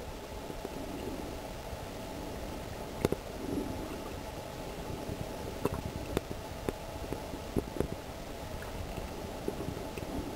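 Underwater sound picked up by a snorkeler's camera: a steady, muffled rush of water with scattered sharp clicks and knocks, the loudest about three seconds in.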